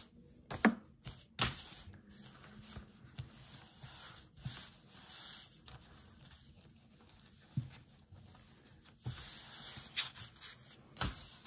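Hands folding and smoothing a cotton knit baby tee flat on a tabletop: soft rustling and rubbing of the fabric, with a few short knocks, the loudest about a second in.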